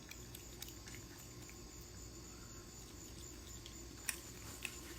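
Faint outdoor background of crickets chirping steadily over a low hum, with two small clicks about four seconds in.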